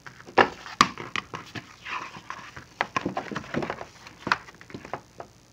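Paper crackling and rustling as a paperback picture book is opened and its cover turned back to the first page, a quick run of sharp crackles and taps that dies away near the end.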